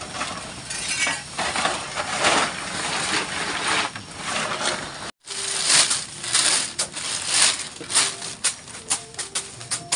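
Rustling of a plastic tarp being pulled and folded over a heap of chopped green forage. About five seconds in the sound breaks off, then a plastic bag crinkles and grain rattles in it as hands dig through it, with many short sharp clicks.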